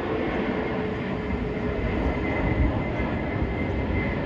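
Electric suburban train running past on the tracks: a steady rumble and rush with a faint, steady high tone over it.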